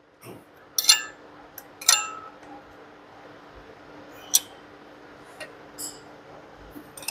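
Sharp metallic clinks, three louder ones a second or two apart, each ringing briefly, with smaller ticks between, over a faint steady hum; no engine is running.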